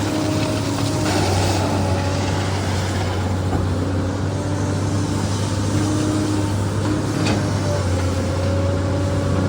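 SANY excavator's diesel engine running steadily under load, with a higher whining tone that comes and goes. There is one short sharp knock about seven seconds in.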